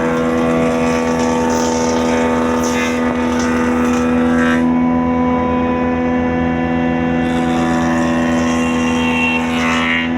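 A steady, unchanging machine hum from a motor-driven woodworking machine running continuously.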